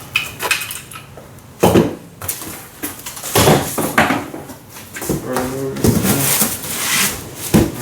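Packaging and parts being handled while a welder's accessories are unpacked from their box: irregular rustling of packing material with knocks and clunks, the loudest about one and a half seconds in.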